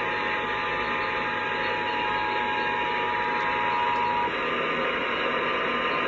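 Emergency Alert System two-tone attention signal, played through a TV speaker for a Required Monthly Test over a steady hiss. The tone holds steady, then cuts off about four seconds in, leaving the hiss.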